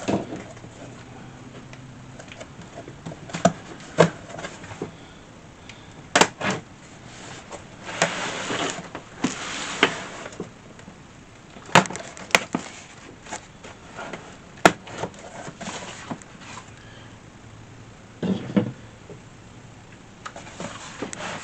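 Cardboard shipping box being opened by hand: scattered knocks and snaps, with a longer stretch of rustling about eight seconds in.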